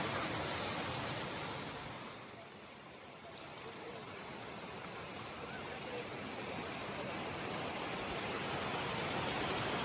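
Rushing water of a small rain-fed waterfall and stream pouring over rock: a steady rushing noise that grows quieter about two seconds in, then swells again and grows louder toward the end.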